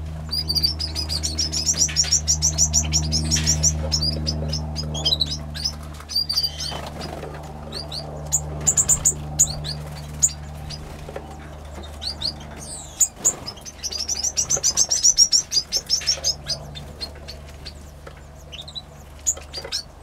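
Small cage birds in a mixed finch and canary aviary, chirping and singing. Two rapid high trills of about three seconds each, one near the start and one about two-thirds through, with scattered single chirps between them, over a low steady hum.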